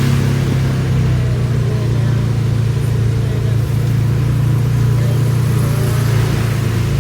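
A car running with a steady, loud low rumble from its engine and tyres, with no change in pace.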